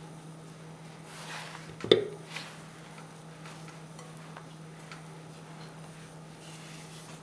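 Hands working crumbly flour-and-egg dough in a glass mixing bowl, with faint rustling and small ticks. About two seconds in comes one sharp knock, the spatula striking the glass bowl, and a lighter click just after. A low steady hum runs underneath.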